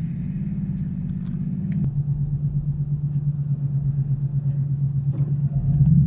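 A car's V6 engine and exhaust heard from inside the cabin, running at low revs as a steady low drone with a fast wobble in loudness. About two seconds in its pitch drops a little, and near the end it grows louder as the revs rise.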